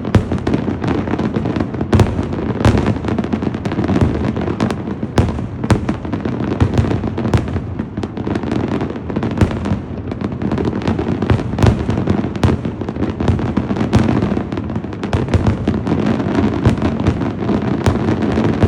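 Fireworks display going off without pause: a dense, continuous run of overlapping booms and sharp crackling bangs.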